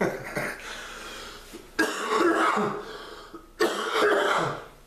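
A man's hard, hacking coughs from a chest illness that brings up phlegm. There are two loud coughing bouts of about a second each, about two and three and a half seconds in.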